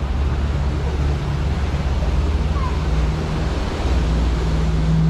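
Engine of a small open sightseeing boat running steadily under way, a low hum, with water washing along the hull and wind buffeting the microphone.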